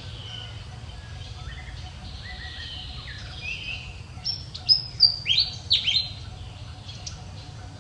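High-pitched animal calls: whistled notes gliding down in pitch, then a quick run of loud, sharp chirps that fall in pitch, about four to six seconds in.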